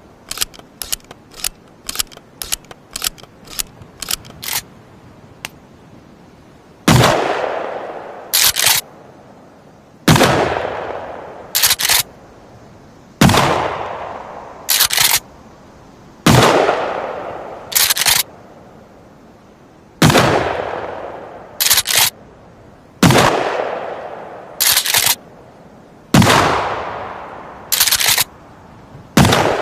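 Shotgun sound effect: first a quick run of about a dozen short clicks, then eight loud shots about three seconds apart, each ringing away over a second or so and followed by a quick double click of the pump action being racked.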